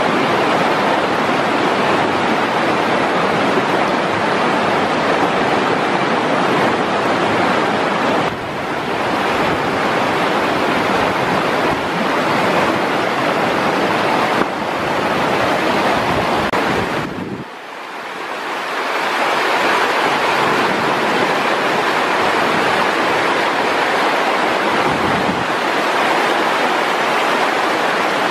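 Shallow river rapids rushing and churning over boulders, a loud, steady noise of white water. It dips briefly about seventeen seconds in, then comes back.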